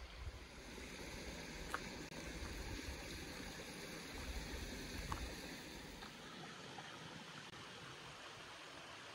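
A mountain stream running steadily, with a low rumble underneath that drops away about six seconds in.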